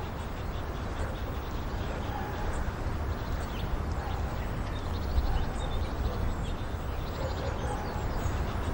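Outdoor background ambience: a steady low rumble with faint, scattered high chirps.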